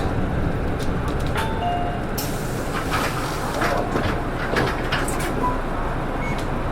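City bus idling at a stop, heard from inside the cabin: a steady low engine rumble with a few short electronic beeps and light knocks.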